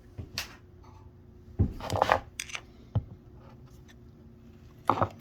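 Hand tools and small metal carburetor parts being handled: a few scattered clicks and short clattering knocks, over a faint steady hum.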